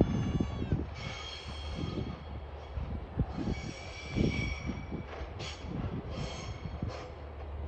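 Coal wagons of a freight train rolling past with a steady low rumble and irregular knocks from the wheels on the rails. Several high-pitched wheel squeals come and go: a long one at the start, another about a second in, a longer one around the middle, and three short ones near the end.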